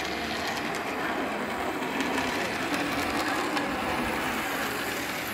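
Model train running on a layout's track: a steady small-motor whir with faint clicks from the wheels.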